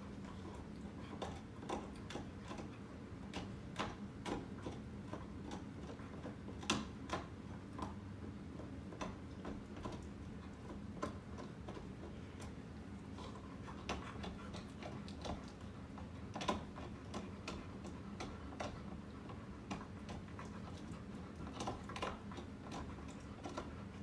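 Ceiling fan running: a steady low motor hum with irregular light ticks and clicks, one or two a second, a couple of them louder.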